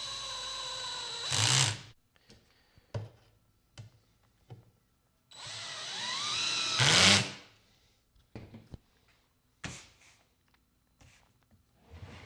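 Power drill on its lowest setting driving screws into a plastic crate, in two short runs: the first ends about two seconds in, the second rises in pitch and ends with a loud burst near seven seconds. Light knocks and clicks of parts being handled come between and after the runs.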